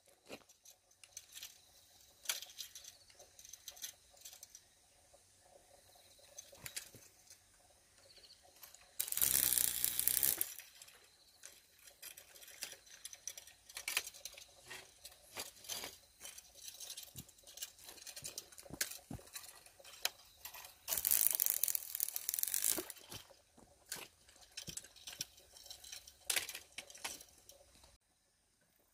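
Scattered light clicks and rustling, with two louder spells of rustling lasting a second or two, about nine seconds in and about twenty-one seconds in.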